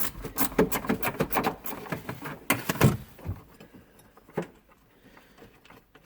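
Rapid, irregular metallic clicks and clinks of a wrench working loose the 10 mm nut on a car battery's hold-down. They run for about three seconds, with one more click a little after four seconds, and then stop.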